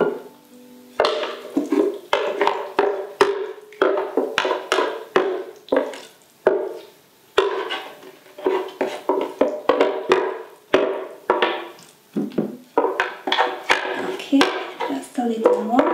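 Wooden spatula scraping and knocking inside a plastic Vita-Mix blender jar, scraping out thick blended guacamole: irregular quick knocks and scrapes starting about a second in, with a couple of short pauses.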